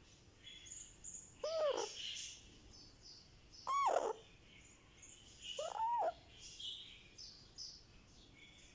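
Baby ringneck parakeet making soft, contented chirps and chatter, with three louder short calls that rise and fall in pitch, about two seconds apart.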